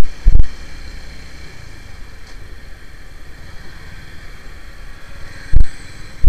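Suzuki Gixxer SF 250 motorcycle ridden slowly, its engine and road noise a low steady rumble. Two loud blasts of wind buffeting the microphone come about half a second in and near the end.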